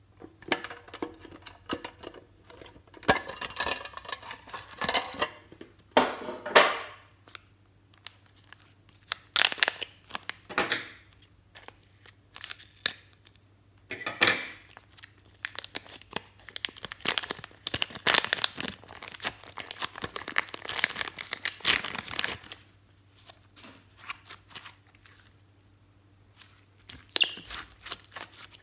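Plastic crinkling, rustling and tearing in irregular bursts as a zip-lock bag of blue slime is handled and opened and the slime squeezed out, with short quiet pauses between bursts.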